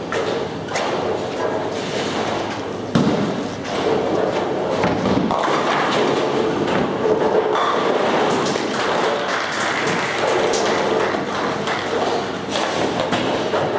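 Ten-pin bowling alley noise: a heavy thump about three seconds in, then a busy clatter of balls and pins echoing through a large hall.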